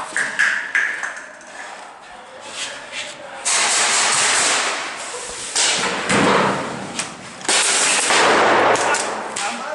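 Three long bursts of full-auto airsoft fire, each starting abruptly and lasting one to two seconds, with a few single clicks between them.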